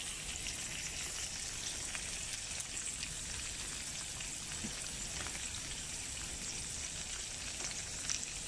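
Sliced sausage frying in oil in a pan on a hot stove top: a steady sizzling hiss with tiny pops scattered through it.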